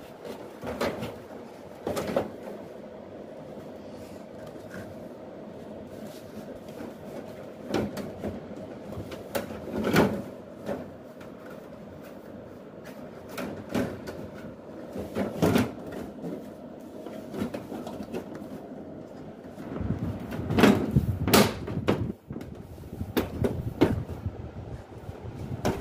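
Plastic front panel of a Daikin split air conditioner's indoor unit being handled and lifted open: scattered clicks and knocks, with a denser cluster near the end, over a steady hum.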